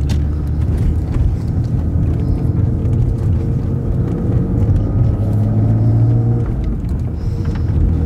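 BMW E36 M3's 3.2-litre S50B32 inline-six running under way, heard from inside the cabin. The revs climb steadily for a few seconds, then drop about six and a half seconds in.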